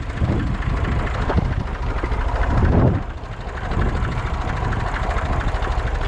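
Tractor engine running while the tractor drives over rough, stony ground, with uneven surges in the first three seconds, then a brief drop and a steadier note.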